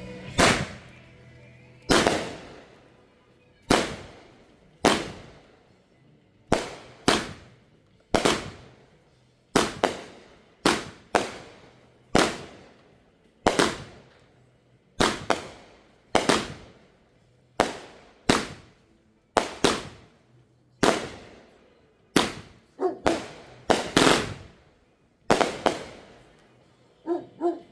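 Fireworks going off: some thirty sharp bangs, each trailing off in a rolling echo, spaced irregularly at about one a second and sometimes two or three in quick succession.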